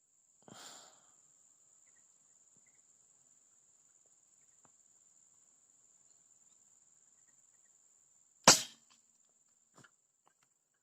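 A single sharp air rifle shot about eight and a half seconds in, then a faint click a second later, over a steady high-pitched insect drone.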